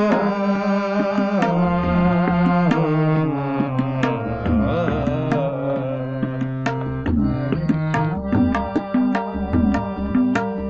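Harmonium playing sustained reedy chords and a melody, with a voice singing over it for roughly the first seven seconds. Tabla strokes keep the rhythm and grow quicker and denser over the last few seconds.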